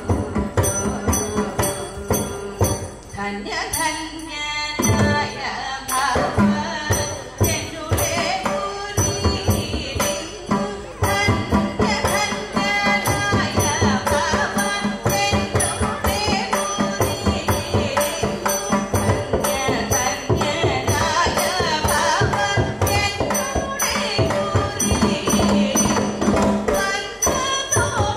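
Thiruvathira song: female voices singing a Malayalam folk melody over a steady, fast rhythmic beat of short strokes.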